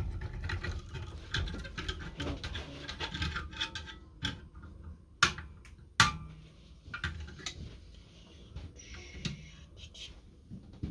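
Scattered clicks, taps and scraping from hand work on small metal parts and tools, with two sharper knocks about five and six seconds in.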